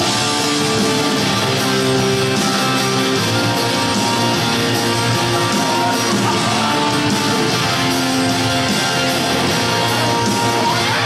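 Guitar-led rock music playing over an ice rink's sound system.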